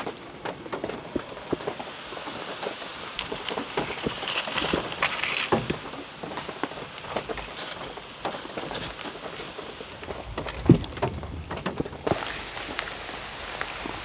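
Heavy rain pattering on a camping shelter, thick with scattered small clicks and crackles. One sharper knock comes a little after ten seconds.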